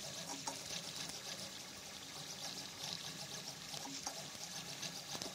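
3D printer running as it prints a gear: its motors whir as the print head moves, over a steady hiss, with a few faint clicks.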